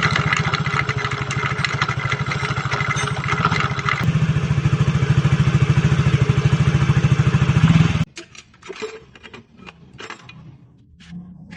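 Yamaha automatic scooter running with a harsh noise from its left-side CVT case, with an even fast pulse, stopping abruptly about eight seconds in. A few scattered clicks and knocks follow.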